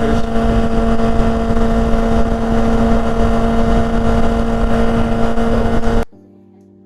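2005 Yamaha R6's inline-four engine running at a steady pitch at highway speed, under heavy wind noise. It cuts off abruptly about six seconds in, leaving faint music.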